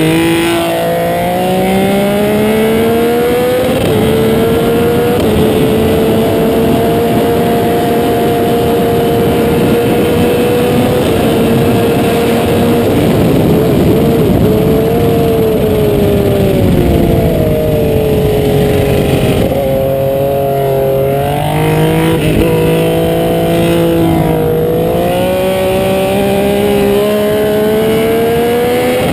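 Supercharged Benelli TNT Evotech three-cylinder engine at full throttle, heard from the rider's seat: revs climb through upshifts and hold high, fall away past the middle as the rider brakes and downshifts, then climb through the gears again near the end. Wind rush runs underneath.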